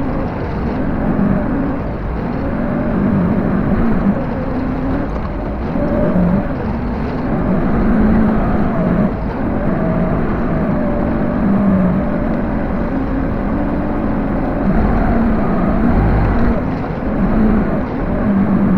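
Backhoe engine running steadily while the machine is driven, its pitch wavering up and down with load.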